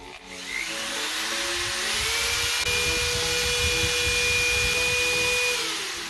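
Corded Ryobi electric drill running off a 600 W portable power station: the motor spins up gradually over about two seconds, runs steadily at speed, then winds down near the end. Started slowly, it runs without tripping the station, drawing about 280 watts.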